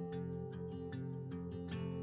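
Soft instrumental music: plucked or strummed guitar notes over sustained chords.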